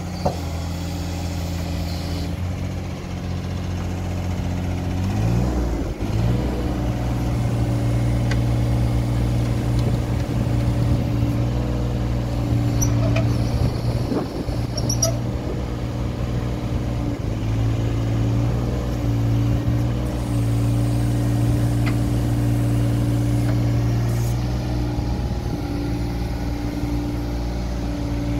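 Takeuchi TB216 mini excavator's diesel engine running at idle, then revving up about five seconds in and running steadily at higher speed, its pitch sagging briefly a few times as the machine is worked. A few light clicks and clanks about halfway through.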